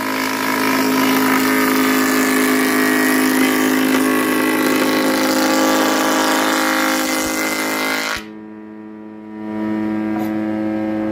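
Multipurpose woodworking machine's surface planer shaving a teak board fed across its table: a dense cutting noise over the machine's steady hum. About eight seconds in, the cutting noise stops suddenly and the machine runs on with only its hum.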